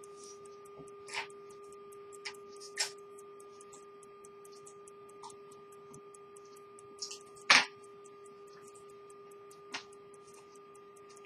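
Antique 18th-century English pocket watch with a verge escapement ticking fast and faintly, about five beats a second, over a steady background hum. A few louder sharp clicks break in, the loudest about seven and a half seconds in.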